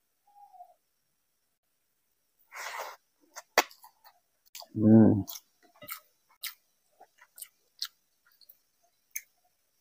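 Bare hand kneading cooked rice with mashed prawn-head paste in a glass bowl: scattered soft wet squishes and small clicks, with a short rustling burst about two and a half seconds in. A short low hummed vocal sound comes about five seconds in and is the loudest thing.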